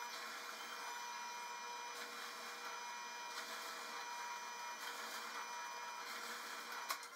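Benchtop drill press motor running while the bit bores into a wooden shelf board, a steady whir with a faint high tone. It cuts off with a click near the end.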